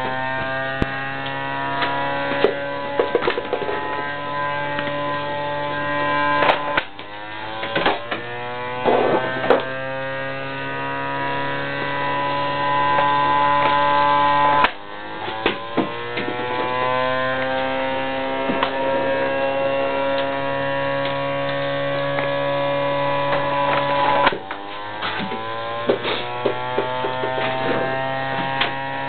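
Pitching machine's electric wheel motor running with a steady whine. Three times it drops sharply, as a ball is fed through the wheels and loads them, then winds back up in pitch to full speed. A few sharp knocks fall in between.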